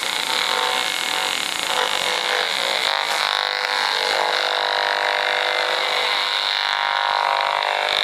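Steady electric buzz from a handheld high-frequency meter's audio output as it picks up the running microwave oven's emissions at a strong reading of around 2,000.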